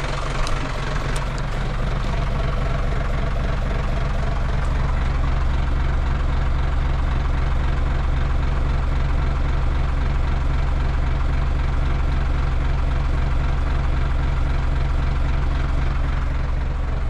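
Car engine idling steadily, a little louder after the first couple of seconds.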